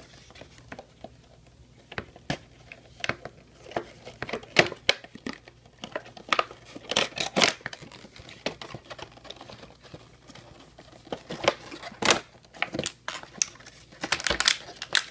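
Cardboard box being opened and a clear plastic packaging tray pulled out and handled: irregular crinkling, scraping and sharp clicks of cardboard and plastic, busiest about seven seconds in and again near the end.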